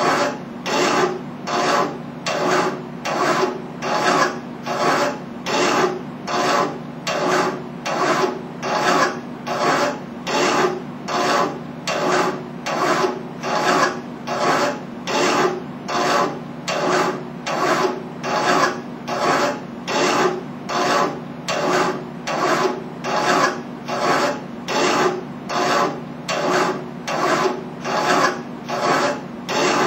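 Hand file being pushed back and forth across a metal tube clamped in a bench vise, an even rhythm of scraping strokes at about three every two seconds.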